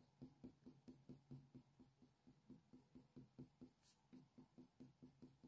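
Faint, quick strokes of a Polychromos coloured pencil shading on hot-press watercolour paper, about four soft scratches a second.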